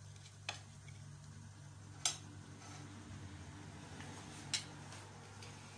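A spatula knocks against a ceramic plate three times while cabbage rolls are served onto it, the second knock the loudest, over a steady low hum.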